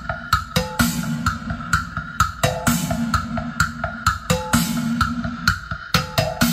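Drum-led music with a steady, quick beat of kick and snare hits, played loud through a PA rig with twin Wisdom HP-1018B subwoofers.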